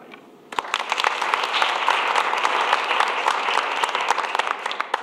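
A roomful of people applauding, a dense patter of many hands clapping that starts about half a second in.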